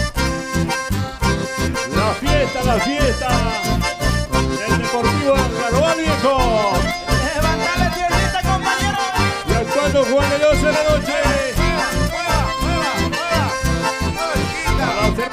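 Live band playing an instrumental passage: two button accordions carry a running melody over acoustic guitars and bass keeping a steady beat.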